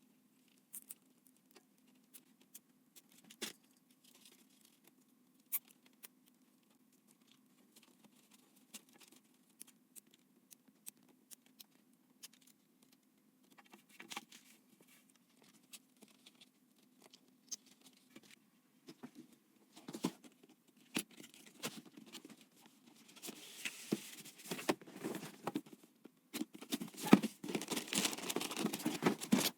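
Hands handling computer parts: scattered light clicks and taps, then denser rustling and scraping over the last several seconds.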